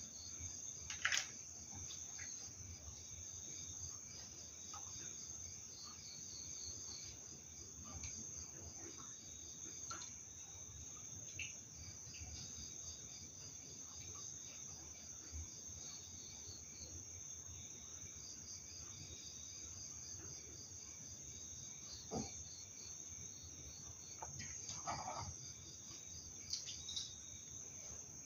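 Night crickets chirping: a steady high trill with a pulsing chirp beneath it, several insects overlapping. A few faint knocks stand out, one about a second in and a couple more near the end.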